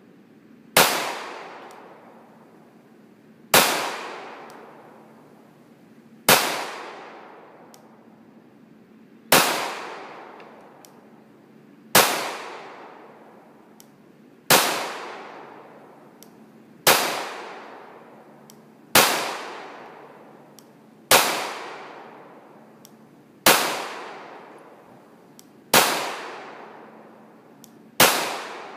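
Glock 17 9mm pistol firing 115-grain Perfecta full metal jacket rounds in slow aimed fire: twelve shots about two to three seconds apart, each followed by a fading echo.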